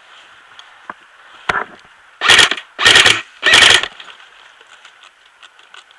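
Airsoft electric gun, an H&K MP5 replica, firing three short rapid bursts of about half a second each in quick succession, with a brief shorter burst just before them.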